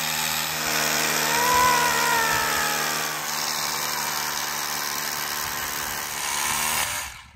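Cordless Ryobi hammer drill boring a rebar hole into a concrete slab with a long masonry bit, running steadily at full speed and stopping suddenly near the end.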